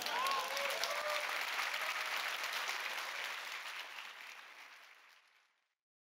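Audience applause, dense clapping that dies away over about five seconds.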